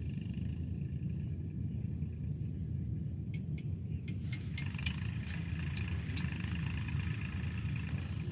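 Steady low outdoor rumble, with faint high chirping that grows from about four seconds in and a few sharp clicks around the middle.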